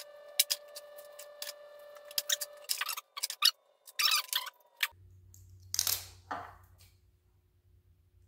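Strips of hook-and-loop (Velcro) tape being cut and handled by hand: a run of sharp clicks and snips over the first few seconds, then two short rasping tears about four and six seconds in.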